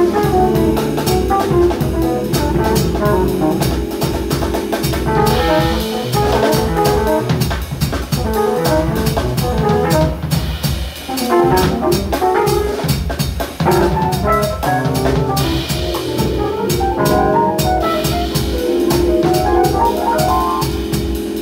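Live jazz band playing: a drum kit played busily, with many quick strokes and cymbal wash, under a trumpet line and keyboards with sustained low notes.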